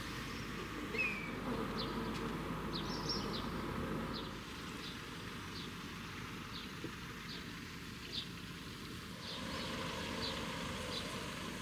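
Small birds chirping, short high chirps every half second to a second, over a steady low hum.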